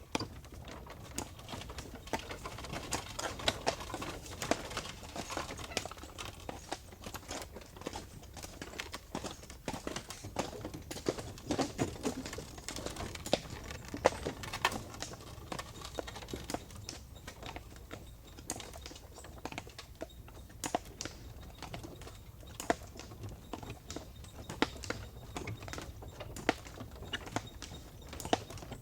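Hooves of a four-horse team clip-clopping in an irregular, overlapping patter as they draw a stagecoach, over a steady low rumble.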